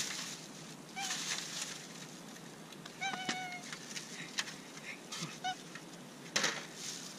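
Cats meowing: three short meows, the longest and clearest about three seconds in. Between them comes crackly rustling of a plastic bag and a plastic food container.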